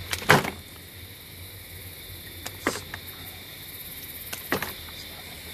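Three pairs of short, sharp knocks and slaps, the loudest near the start, as a large trout is handled on a measuring board, over a steady background hum.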